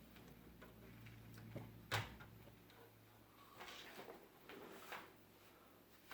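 Faint clicks and taps of a video card and computer parts being handled and fitted, with one sharper click about two seconds in, over a low hum that fades out a second later.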